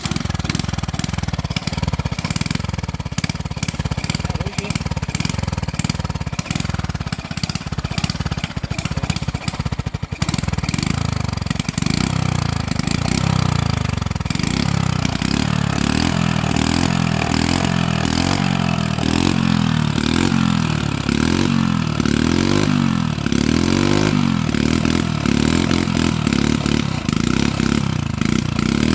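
Small petrol engine running hard, its pitch swinging up and down again and again in the second half as it is revved under load.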